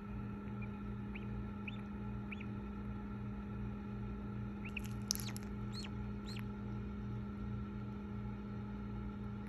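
Newly hatched duckling peeping: short, high chirps, a few scattered early on and a quick cluster about five seconds in, over a steady low mechanical hum.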